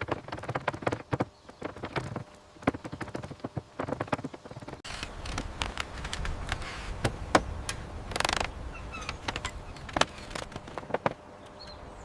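Irregular knocks, taps and clicks of construction work, with a brief scraping rush about eight seconds in.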